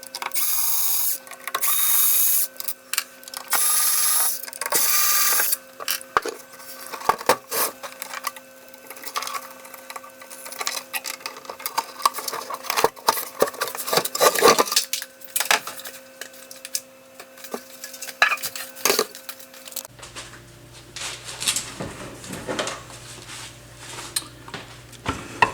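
Electric screwdriver whirring in four short runs of about a second each, backing out the receiver's bottom case screws. After that come scattered clicks and knocks of screws and the metal case being handled.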